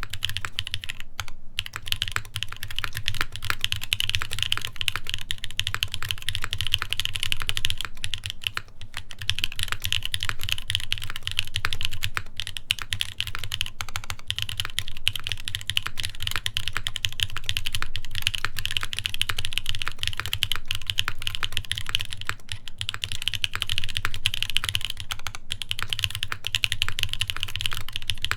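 Continuous fast typing on an Iron180 custom mechanical keyboard with lubed Epsilon linear switches, a carbon fiber plate and GMK keycaps, a dense stream of keystroke clacks with brief pauses about a second in and near nine seconds.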